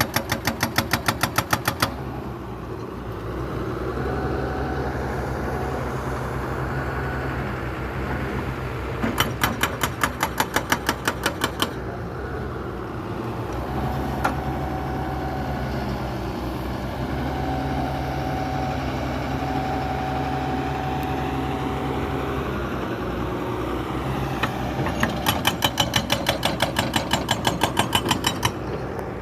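Jackhammer breaking stone in three bursts of rapid hammering: one at the start, one about nine seconds in, and a longer one near the end. Under and between the bursts an engine runs steadily.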